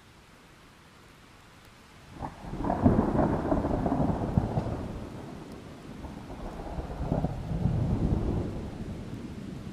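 Thunder: a sharp crack about two seconds in, then a rolling rumble that eases, swells again and fades near the end, over a steady hiss of rain.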